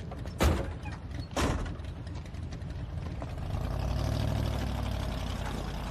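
Two car doors slam shut about a second apart, then a car engine runs with a low rumble whose pitch slowly rises and falls.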